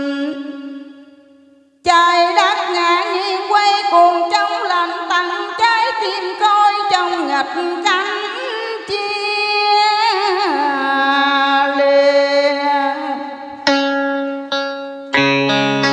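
A woman singing a Vietnamese song into a microphone over a karaoke backing track with plucked-string instruments. The sound fades out about a second in and comes back abruptly at about two seconds; near the end the singing stops and the instrumental backing carries on alone.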